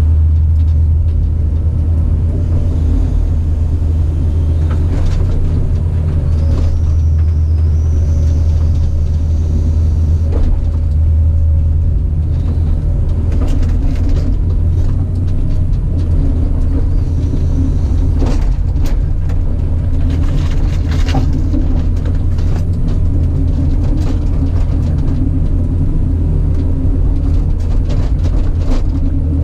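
Caterpillar 973C track loader's diesel engine running steadily and loudly under work, with scattered knocks and clanks from the machine and the debris it handles.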